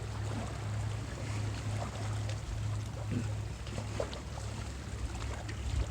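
Small waves lapping against shoreline rocks, faint and uneven with a few small splashes, over a steady low rumble.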